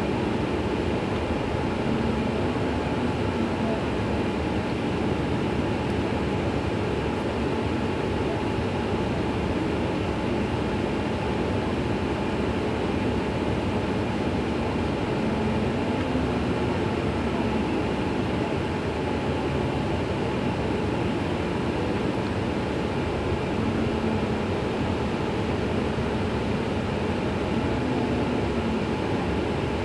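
An Iveco Crossway LE CNG city bus running steadily on its compressed-natural-gas engine, a constant hum with a faint steady whine above it.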